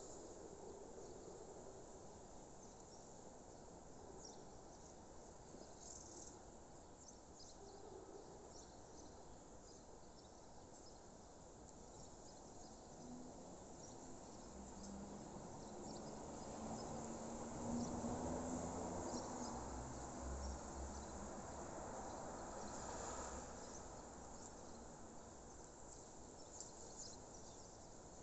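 Rural outdoor ambience of crickets and other insects chirping continuously. A low rumble swells up and fades away in the middle.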